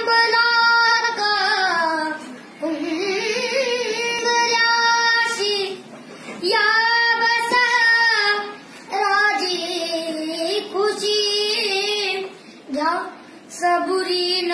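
A boy singing solo and unaccompanied in a high voice, drawing out long notes with wavering, ornamented turns in phrases of one to three seconds, broken by short breaths.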